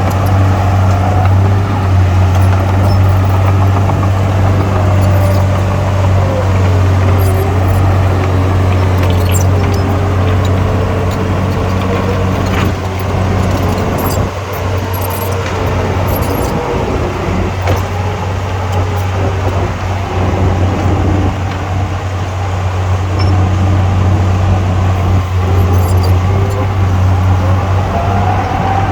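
Heavy diesel engine running with a steady low drone, a higher whine drifting up and down in pitch, and scattered short metallic clicks.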